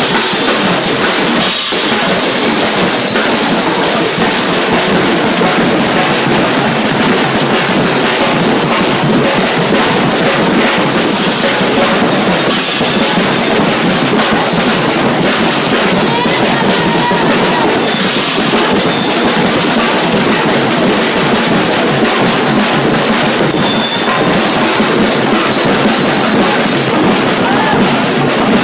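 Percussion group drumming: many drums struck together in a dense beat that keeps going without a break.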